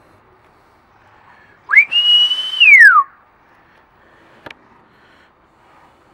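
A person whistles once, loudly, calling the dogs: the whistle rises, holds high for about a second, then slides back down. A short click follows about a second and a half later.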